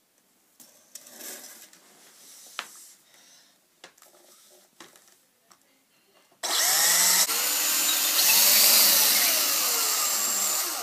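Faint clicks and handling of a DeWalt cordless drill as a bit is fitted in its chuck, then about six seconds in the drill starts and runs for about four seconds, boring a hole into the end of a softwood beam, its pitch wavering as the bit cuts.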